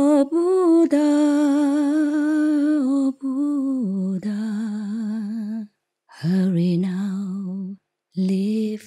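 A woman singing unaccompanied into a microphone: long held notes with vibrato, the pitch stepping down about four seconds in, followed by two shorter sung phrases with brief pauses between them.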